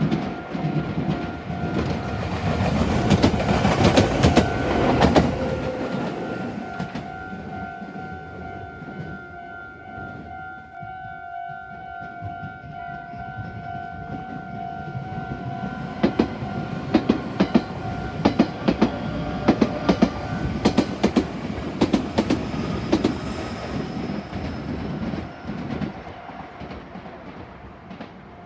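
Meitetsu trains passing over a level crossing, their wheels clacking over the rail joints, while the crossing's warning bell rings steadily. One train passes in the first few seconds and another from about two-thirds of the way through. The bell stops about three-quarters of the way through.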